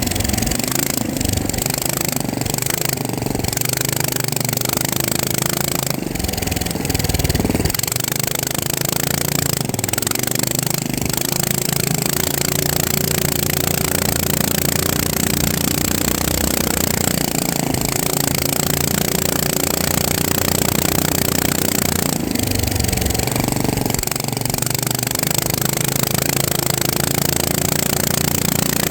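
FPV quadcopter's motors and propellers running in flight: a loud, continuous whine made of several tones that shift up and down in pitch with the throttle, over a steady noisy rush.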